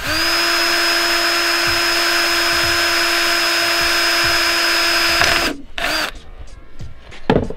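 Electric drill with a 2 mm bit running at a steady high speed, boring a small pilot hole into the camper's metalwork for a screw, then stopping about five and a half seconds in. A short second burst of the drill follows, then a single knock near the end.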